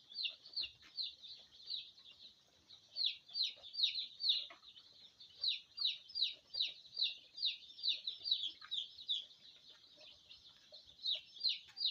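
A flock of young ISA Brown pullets peeping: many short, high, falling cheeps overlapping, several a second.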